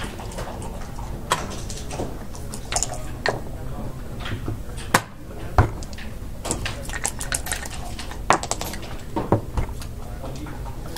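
Plastic backgammon checkers clicking against the board and each other as they are moved, with a die rolled onto the board. The clicks are scattered, with two sharp ones about halfway through and quick clattering runs in the second half.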